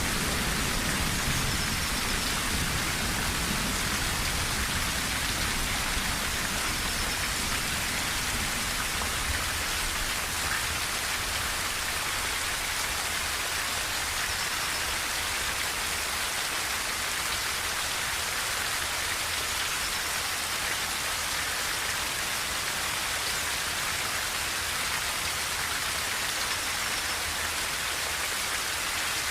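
Steady heavy rain drumming on a tin roof, an even hiss. A low thunder rumble dies away in the first couple of seconds.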